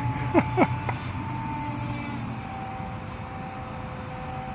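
Battery-powered RC airplane's electric motor and propeller whining in flight, a steady tone that sags slightly in pitch; a lower hum fades out about halfway. Two brief sharp sounds come about half a second in.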